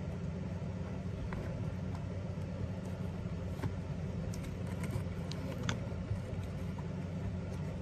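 A steady low hum, with a few faint clicks and taps from hands handling crumpled paper and the plastic toy garbage truck's can.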